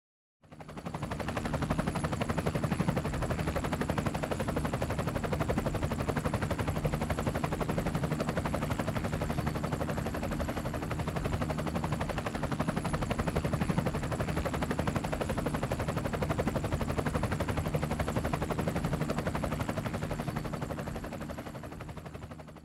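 An engine running steadily with a fast rattling pulse, fading in at the start and fading out near the end.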